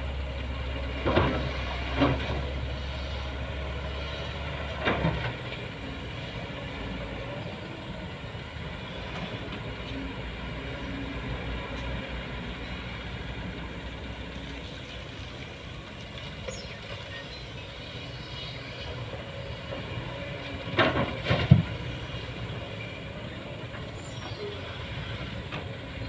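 Diesel engines of a SANY hydraulic excavator and six-wheel coal dump trucks running, with a deep steady rumble that eases about five seconds in. Several loud short noises stand out: about one, two and five seconds in, and twice about twenty-one seconds in.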